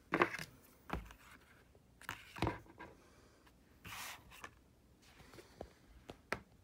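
Paper picture book rustling and scraping in a few short bursts as it is shifted and handled, with soft knocks and a few light clicks from a plastic toy dinosaur being moved aside.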